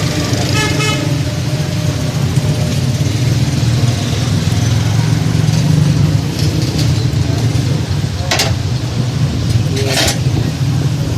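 Busy street traffic noise with a steady low rumble and a vehicle horn tooting briefly about half a second in; two short hissing bursts come near the end.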